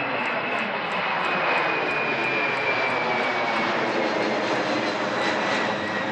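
Boeing 767-300ER's twin jet engines climbing out after takeoff: a steady, loud jet roar with a thin high whine that slowly falls in pitch as the airliner passes overhead.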